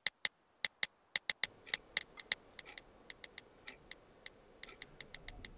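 Smartphone keyboard clicks as someone types a text message: quick taps at uneven intervals, several a second.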